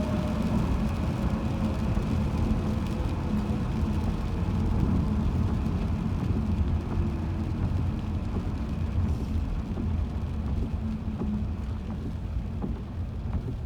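Road and tyre noise of a car heard from inside the cabin, a steady low rumble with a faint whine that slowly falls in pitch over about ten seconds.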